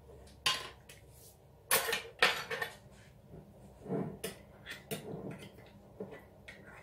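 Kitchen utensils clinking and knocking: a dessert spoon and a jam jar being handled beside a metal tart tray, with several short sharp clinks, the loudest about two seconds in.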